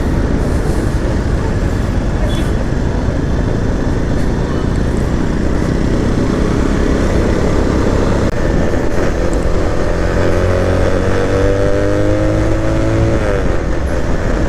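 Vehicle engine running under road and wind noise while on the move; about two-thirds of the way through the engine pitch climbs steadily for a few seconds as it accelerates, then drops as the throttle closes.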